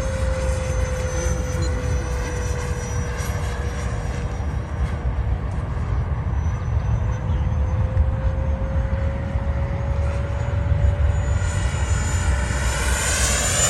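Twin electric ducted fans of a Freewing Yak-130 RC jet whining in flight, one steady tone that sags slightly and climbs again, over a low rumble. Near the end it grows louder with a sweeping whoosh as the model passes close.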